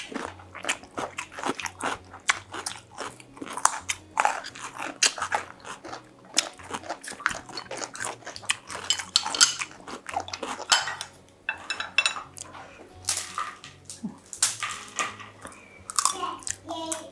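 Close-miked crunchy eating: repeated bites and chewing of crisp food, with sharp irregular crunches throughout.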